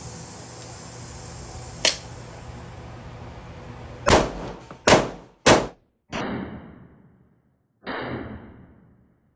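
9mm Glock pistol with a Radian Ramjet compensator firing: a sharp click about two seconds in, then three quick shots under a second apart, followed by two more reports that ring and die away.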